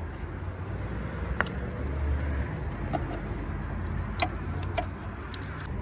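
Scattered light metallic clicks and clinks, about six of them, as hand tools and parts are handled on a throttle body being unbolted. A steady low hum runs underneath.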